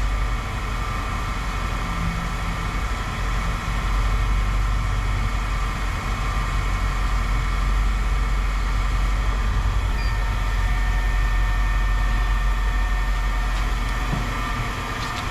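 An engine running steadily at idle: a constant low hum with a faint steady whine above it.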